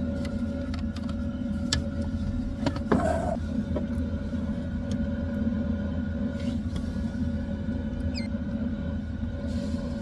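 Eberspächer D2L diesel parking heater running with a steady low rumble and hum, with a few light clicks.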